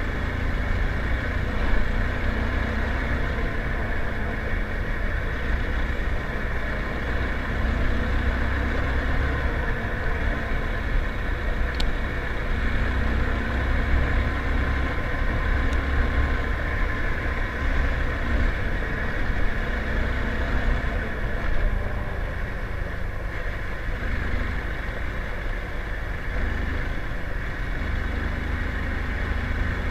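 Motorcycle running steadily on the move, with wind rumbling on the microphone.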